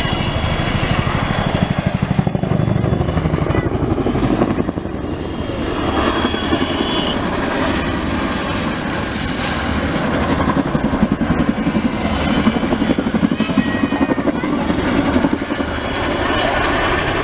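Boeing CH-47 Chinook tandem-rotor helicopter flying a display, its twin rotors beating with a loud, rapid, even blade slap.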